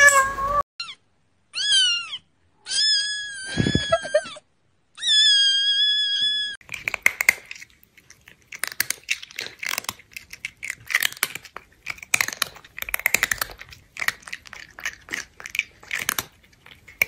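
A cat meowing four times, short high calls that bend in pitch, then about ten seconds of dense, crackly crunching like a cat chewing something crunchy.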